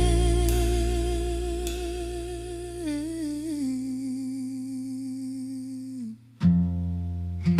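Song outro: a hummed vocal note held with vibrato over fading accompaniment, stepping down in pitch about three seconds in and dying away near six seconds. After a brief silence the accompaniment, with acoustic guitar, starts up again.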